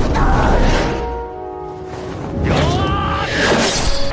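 Fight-film soundtrack: score music with a heavy low rumble through the first second, then held notes, and a wavering voice-like cry about two and a half seconds in.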